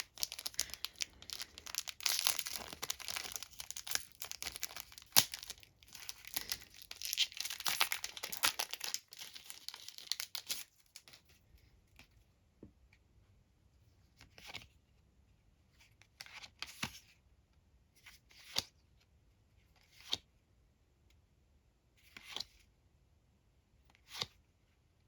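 A Weiss Schwarz booster pack's foil wrapper being torn open and crinkled for about ten seconds. Then the trading cards are slid over one another one at a time, with a short soft swish every couple of seconds.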